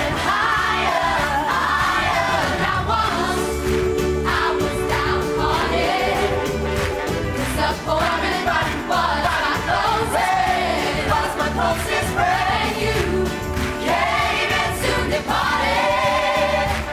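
Gospel choir singing in harmony, several voices holding chords under a leading melody, over a steady low beat.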